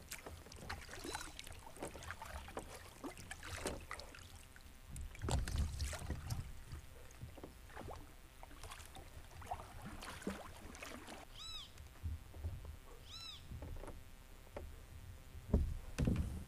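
Kayak paddle strokes: the blades dip and splash in the water, with drips and knocks against the hull at an uneven pace. Two short calls that rise and fall in pitch come about two seconds apart, a little past the middle.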